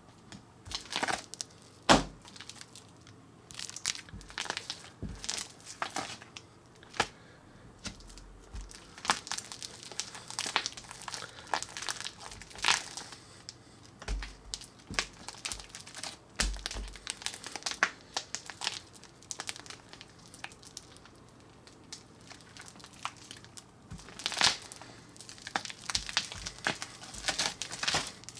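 Hands squeezing, stretching and kneading slime made with Dunecraft Gobbledy Goop powder, giving many irregular sticky crackles and pops, with a quieter lull a little past the middle.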